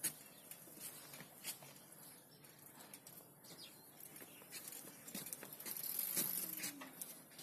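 Faint outdoor background of birds chirping now and then, with scattered light clicks and taps.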